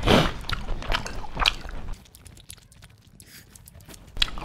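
Close-miked eating sounds of pork curry being chewed: wet mouth clicks, smacks and chewing, dense at first and thinning to a few faint ticks after about two seconds.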